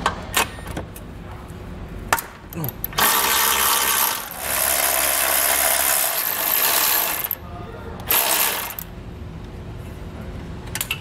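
Cordless electric ratchet spinning off 14 mm bolts and nuts. A few metal clicks of the socket come first, then the tool runs for about four seconds starting three seconds in, with a brief dip partway, and runs again for under a second near eight seconds.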